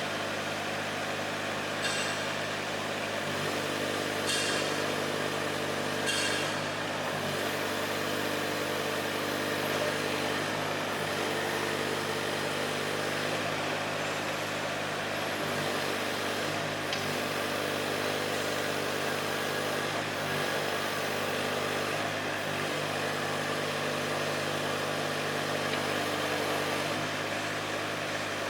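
Mini excavator's Yanmar diesel engine running steadily, with a higher hydraulic whine that comes and goes every few seconds as the machine works. A few sharp metallic clanks sound in the first several seconds.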